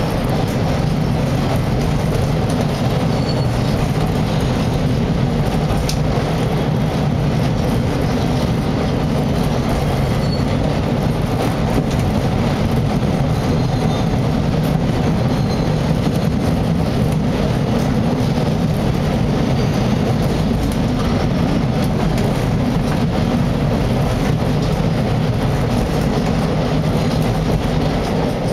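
Chicago Blue Line rapid-transit train running along at a steady pace, heard from inside the passenger car: an even, low running noise of wheels on rail.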